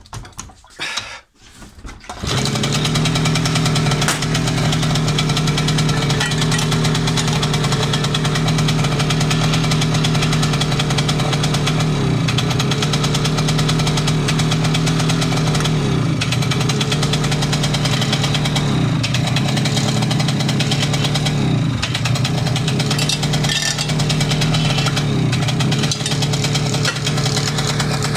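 Romet Pony M2 moped's small two-stroke engine kicked over a couple of times and catching about two seconds in, then running steadily at idle. It falters briefly a few times in the second half, while the magneto cover is held against it: an ignition fault that makes the engine die with the cover pressed on and run fine with it off, whose cause the owner has not found.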